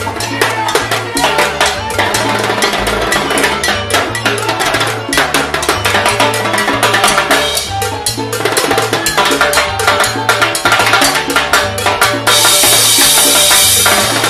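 Salsa band with a timbal solo: fast, dense strikes on the metal-shelled timbales over a pulsing bass line. Near the end a cymbal crash rings out for a couple of seconds.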